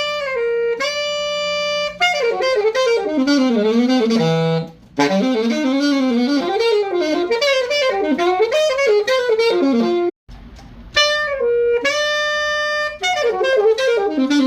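Solo saxophone playing a jazz phrase: a few held notes, then quick running lines. It breaks off about ten seconds in, and the same phrase starts again on the next mouthpiece being compared.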